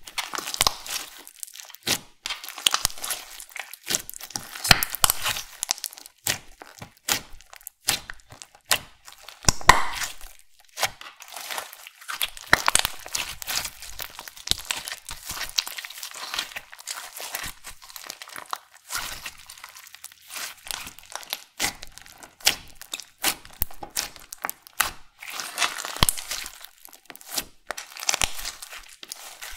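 Slime being squished, pressed and stretched by hand, giving a dense, irregular run of sticky crackles and pops, with a few louder snaps about ten seconds in and again near the end.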